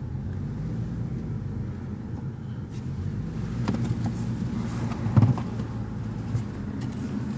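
Car running along a road, heard from inside the cabin: a low steady engine and road hum. There are a few light knocks, the loudest about five seconds in.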